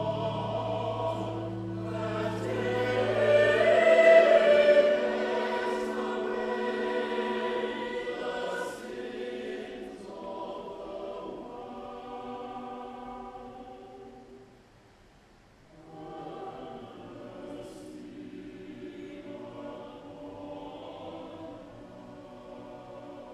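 Church choir singing a choral setting over held low organ notes. The choir swells to a loud climax about four seconds in, then sings more softly, dropping almost to silence briefly around the middle before going on quietly.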